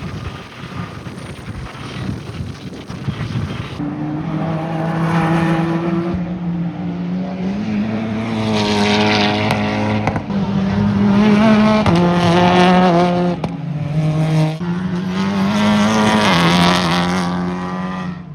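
Race car engines at high revs passing on the circuit, several cars one after another, each engine note holding steady and stepping in pitch as it goes by.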